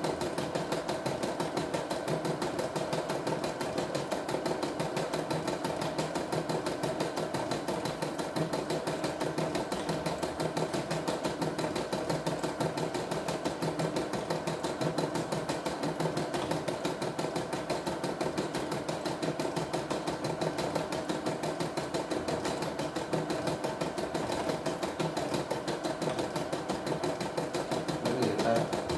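CNY E960 computerised embroidery machine stitching out a design, its needle running at a rapid, steady stitching rhythm. It gets briefly louder near the end.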